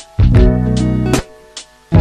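Background music in short stop-start phrases: a sustained chord over a strong bass note starts about a quarter second in, cuts off about a second later, and comes back just before the end.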